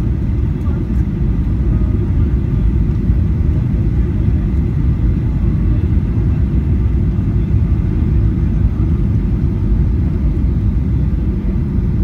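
Steady, loud low rumble of a jet airliner's cabin in flight, the engine and airflow noise heard from a window seat over the wing.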